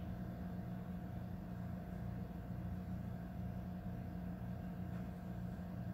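A steady low hum with a faint hiss, unchanging throughout, like a running appliance or fan.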